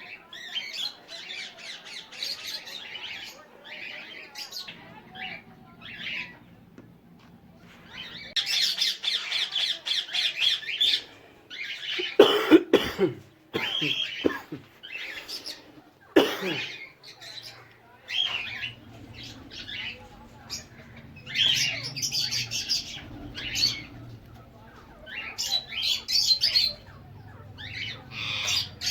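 Caged pet parrots, ringneck parakeets and cockatiels, squawking in repeated harsh calls. A few loud sharp knocks cut in about twelve and sixteen seconds in.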